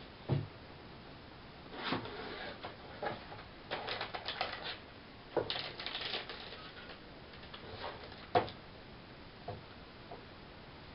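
Packaging handled on a tabletop: a cardboard box knocked and opened, and a plastic bag crinkling as a power module is slid out of it. Scattered clicks and short rustles, with a sharp knock about eight seconds in.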